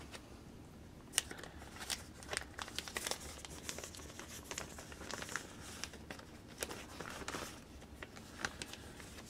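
Hand-handling noise: intermittent crinkling rustles with small sharp clicks scattered through, as materials are picked up and handled.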